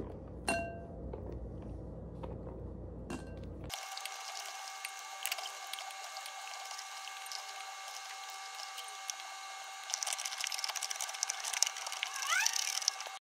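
Pumpkin seeds and pulp dropped into a glass mixing bowl: a few sharp knocks, each leaving a brief ring from the glass. A little under four seconds in, the sound switches to a steady hiss with faint steady tones, growing louder and crackly in the last three seconds.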